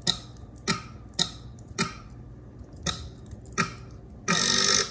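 Six short, sharp clicks about half a second to a second apart, audio blips from stepping through recorded footage on an editing timeline. Near the end, louder sustained playback starts: the recording of the impact driver race.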